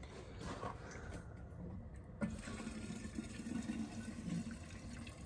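Gasoline trickling from a plastic gas can into a chainsaw's fuel tank, faintly, with a single light knock about two seconds in.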